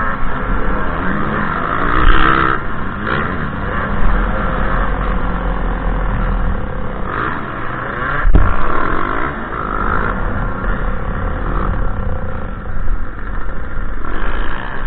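2007 KTM 300 XC two-stroke dirt bike engine revving hard and rising and falling in pitch as the bike races around the track, with other dirt bikes close by. A few loud knocks come about two, four and eight seconds in.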